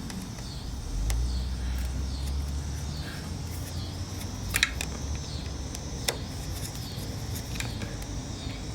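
A few light clicks and taps from hand tools and metal hose clamps on a motorcycle's carburetor intake hose, over a low background rumble for the first few seconds.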